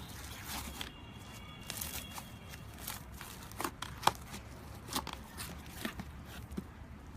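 Slime being squeezed and worked by hand, giving irregular sticky clicks and crackling pops, one sharper pop about four seconds in.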